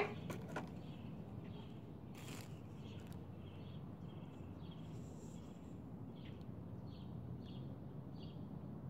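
Quiet outdoor background: a steady low hum with small birds chirping faintly now and then, and a light click about two seconds in, like a plastic bottle cap being handled.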